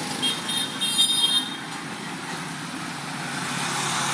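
Steady street traffic noise, with a short run of high-pitched tones about a second in.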